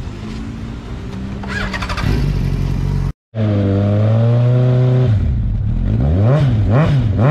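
A motorcycle engine running. After a sudden break, a second motorcycle with a large slip-on silencer idles steadily, then is blipped three times in quick succession near the end, the pitch rising and falling with each rev.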